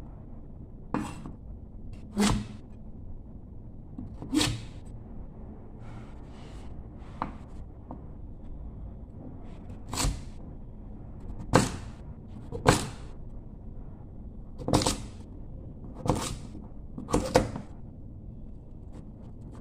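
Kitchen knife cutting through a firm yellow fruit and knocking down onto a wooden chopping board: about ten separate knocks a second or two apart, with a low steady room background between them.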